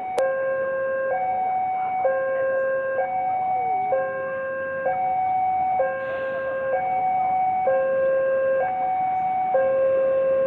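Railway level-crossing warning alarm switching on with a click, then sounding two alternating electronic tones, high and low, each held about a second, as a train approaches.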